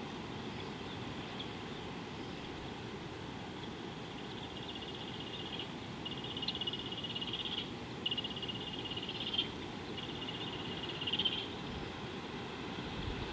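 An animal's high, rapid trill, given four times in a row, each about a second long, starting about four seconds in, over a steady low rumble of outdoor background noise.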